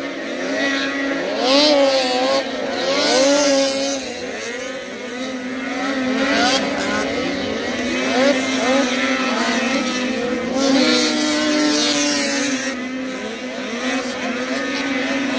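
Several racing snowmobile engines running hard together, a loud overlapping whine whose pitch keeps rising and falling as the sleds pass and accelerate around the track.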